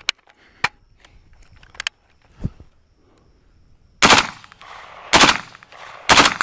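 A few faint handling clicks and a low thud, then an HK G36C 5.56 mm rifle fires three short full-auto bursts about a second apart, starting about four seconds in.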